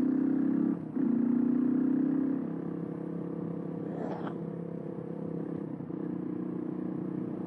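Suzuki DR125's single-cylinder four-stroke engine running steadily under way. The note breaks briefly about a second in, then eases to a quieter, lower-revving drone about two and a half seconds in.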